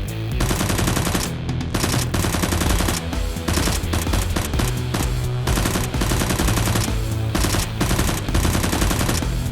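Rapid, continuous automatic gunfire sound effects, with background music beneath.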